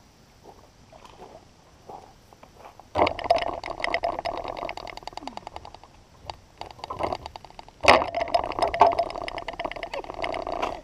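Fishing reel being cranked fast to bring in a hooked bass: a rapid, even clicking whirr in two spells, starting sharply about three seconds in and again near eight seconds, with a pause between.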